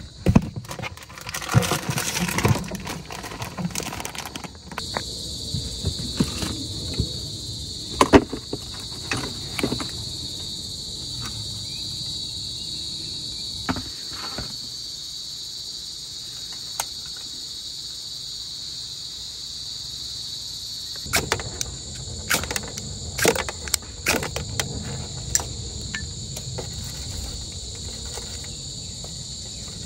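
Steady insect chorus, a continuous high-pitched trill of crickets. Scattered clicks and knocks sound over it, loudest about eight seconds in and in a cluster about three-quarters of the way through.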